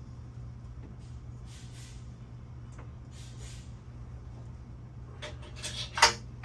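Hand work on an engine block: a couple of soft scrapes, then a quick run of clicks ending in one sharp clack about six seconds in, as parts or tools are handled. A steady low hum runs underneath.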